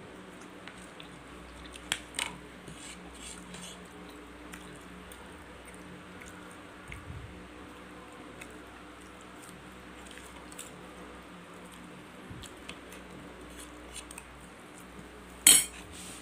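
Stainless knife and fork clicking and scraping on a ceramic plate while cutting and picking up french fries, with soft chewing. A couple of sharp clinks come about two seconds in, and one louder clink near the end.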